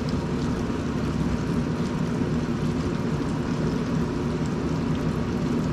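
Hot oil bubbling in an electric deep fryer as fish fries: a steady hiss over a constant low hum.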